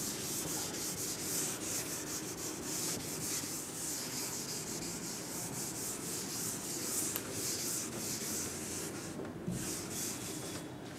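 Chalkboard duster wiping chalk off a chalkboard: a steady scratchy rubbing in quick back-and-forth strokes, easing off briefly near the end.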